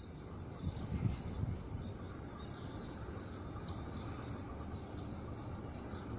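Outdoor ambience: a steady, fast high-pitched insect trill with a few short bird chirps over a low rumble that swells briefly about a second in.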